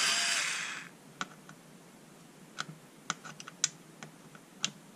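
Black & Decker cordless screwdriver whining as it runs in reverse, backing a screw out of wood, and stopping under a second in. A scattering of light clicks and taps follows as the screwdriver bit is handled and set on the screws.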